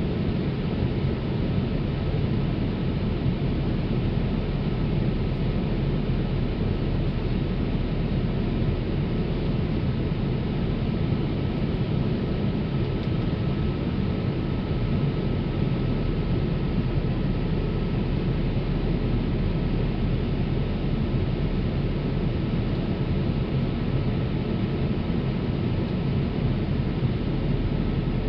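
Steady airliner cabin noise inside a Boeing 787 Dreamliner: an even rush of engine and airflow noise, deepest in the low end, with a faint steady high tone running through it.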